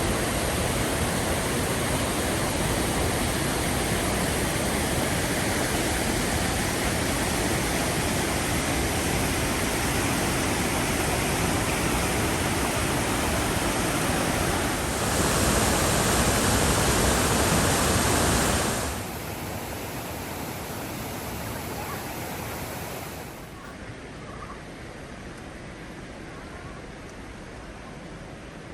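Rushing water of Babinda Creek pouring through the boulders: a loud, steady roar. It drops suddenly in level twice, once about two-thirds of the way in and again near the end.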